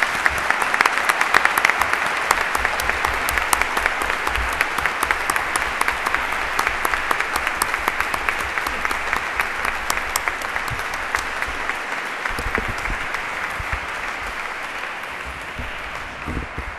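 Audience applauding: many people clapping steadily, the applause slowly dying down toward the end.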